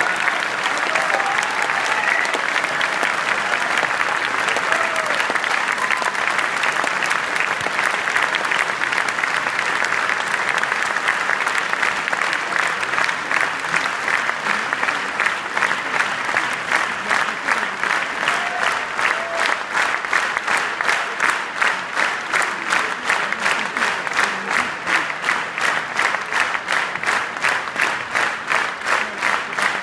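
Large audience applauding. About halfway through, the clapping falls into unison as a steady rhythmic beat of about two to three claps a second.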